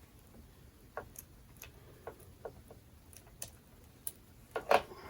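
Scattered light clicks and taps of red wire connectors being handled and gathered for the battery's positive terminal, with one sharper knock near the end.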